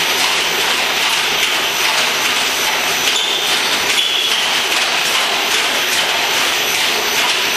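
ISO double-drum wheelchair fatigue tester running, its two drums turning under a manual wheelchair's wheels and casters: a steady, even mechanical noise.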